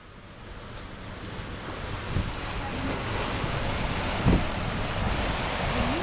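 Wind buffeting the microphone and sea water rushing past the hulls of a sailing catamaran under way. The sound fades in over the first couple of seconds, with a dull thump about two seconds in and a louder one about four seconds in.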